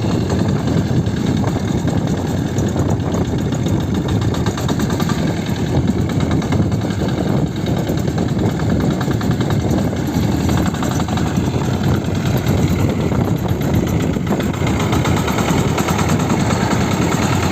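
Motorcycle engine of a sanedo, a home-built motorcycle-based farm tractor, running steadily.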